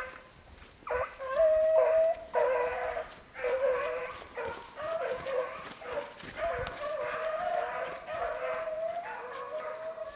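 Several beagles baying as they run a track, the cry of hounds on scent: a string of long, drawn-out bays starting about a second in, overlapping one another.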